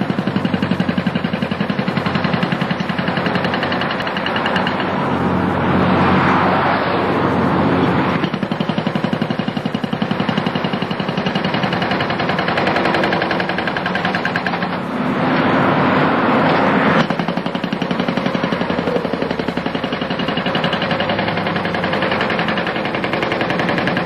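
NPK E208 hydraulic breaker on an excavator hammering a road's pavement, a fast, continuous train of blows.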